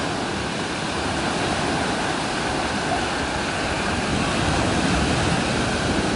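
Small sea waves breaking and washing up a sandy beach: steady surf.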